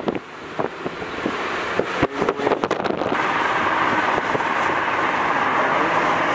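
Road and wind noise inside a moving car, with scattered clicks and knocks for the first few seconds. About three seconds in it changes suddenly to a steady, louder rush of road noise.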